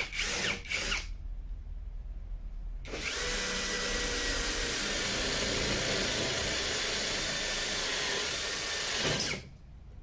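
SfunPro 16V compact cordless drill in drill-only mode, boring into concrete with a masonry bit. A few short trigger bursts come first, then about six seconds of steady drilling with a grinding edge, which stops abruptly near the end.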